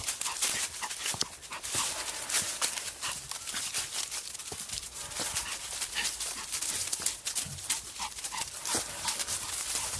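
Footsteps crunching along a dirt mountain trail, an irregular run of short crunches several times a second.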